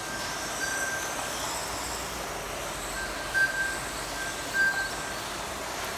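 1/12-scale GT12 electric RC cars with 13.5-turn brushless motors running laps on a carpet track: a steady wash of motor whine and tyre noise. A thin high tone comes and goes several times, swelling briefly about three and a half and four and a half seconds in as cars pass.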